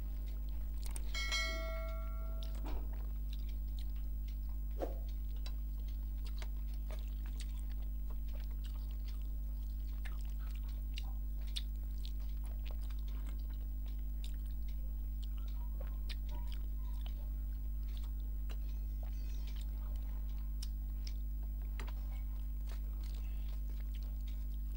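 Close-up chewing and biting of rice and mutton curry eaten by hand, many small wet mouth clicks and smacks, over a steady low electrical hum. A short chime of several tones sounds about a second in.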